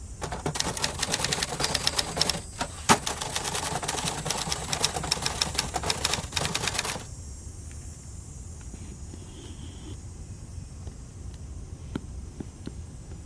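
1970s Adler Gabriele 25 manual typewriter being typed on: a fast run of key strikes for about six seconds, with one louder strike near the middle. The typing stops about seven seconds in, leaving only a few scattered clicks.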